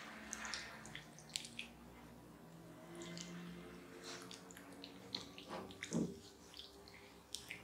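Hands massaging a bare back slick with passion fruit pulp: faint, scattered wet squishing with small clicks.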